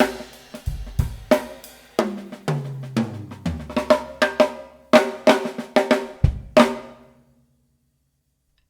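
Drum kit played with a 12x7 inch snare: sharp hits with snare and cymbals, then a fill stepping down in pitch across the 8, 10, 12 and 14 inch toms. Final cymbal and drum hits about six and a half seconds in ring out and die away by about seven seconds in.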